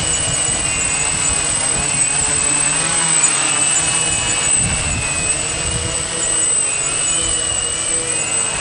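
A quadcopter's four electric motors and propellers whining as it hovers and manoeuvres low, the pitch of the whine wavering up and down as the motors change speed, over a low rumbling rush of propeller wash.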